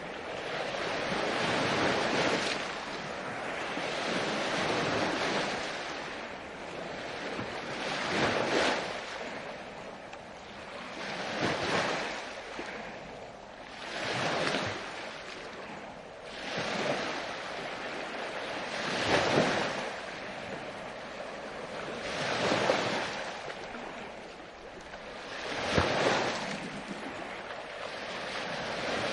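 Sea waves washing in and drawing back, a rushing surge about every three seconds.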